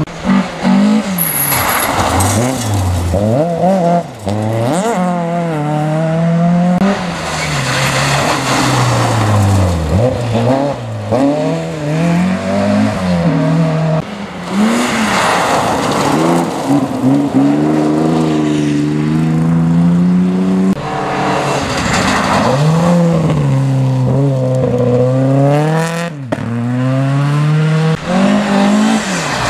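Rally car engine revving hard on a gravel stage, its pitch climbing again and again through the gears and dropping back as the driver lifts and shifts, with the noise of tyres on the loose gravel swelling in between.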